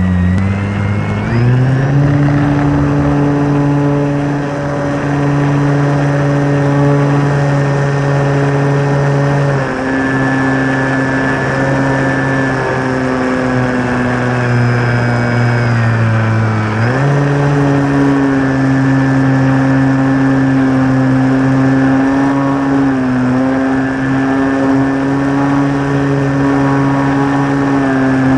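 Motor and propeller of an RC Carbon Cub model plane heard from on board, run up to a higher, steady pitch in the first couple of seconds as it takes off. The pitch drops a little about ten seconds in and climbs sharply again about seventeen seconds in as the throttle changes.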